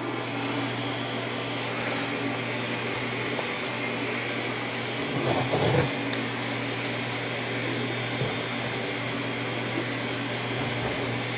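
A small motor or fan running steadily, an even whir over a low hum, with a brief louder patch about halfway through.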